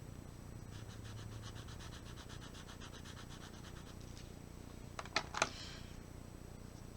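Tim Holtz Distress watercolor pencil scratching on watercolor paper in quick back-and-forth strokes as a colour swatch is filled in. About five seconds in come two or three sharp clicks, the loudest sounds.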